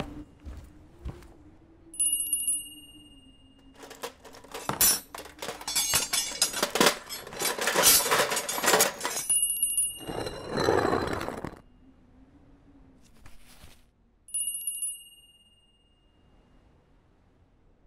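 A small high bell-like chime rings three times. Between the chimes there is a long run of clinking and jingling, like glass beads and small metal pieces spilling and knocking together, and then a short rushing scrape.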